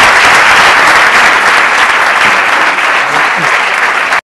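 Audience applauding, a steady dense clapping that cuts off abruptly at the end.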